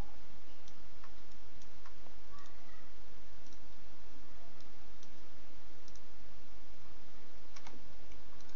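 Scattered, irregular clicks of a computer mouse over a steady hiss.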